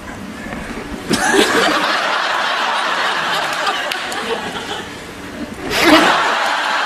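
Studio audience laughing, starting suddenly about a second in and easing off, then swelling again near the end as applause breaks out.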